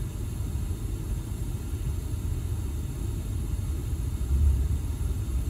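Steady low background rumble, swelling slightly about four seconds in.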